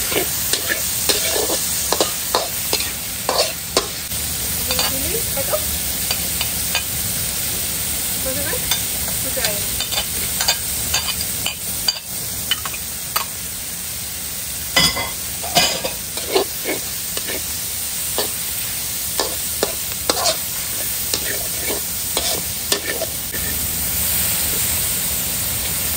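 Food sizzling in hot oil in a wok while a metal spatula stirs it, scraping and clinking against the wok. The clinks come irregularly throughout, with a burst of louder clanks midway.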